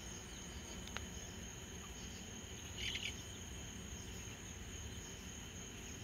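Crickets trilling steadily in the night: a faint, continuous high insect chorus. There is a faint click about a second in and a short, louder sound about halfway through.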